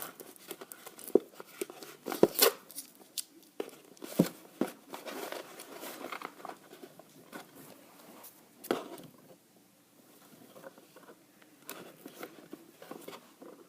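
Cardboard and plastic toy packaging being handled and worked open: irregular rustling, tapping and scraping, with a few sharper clicks.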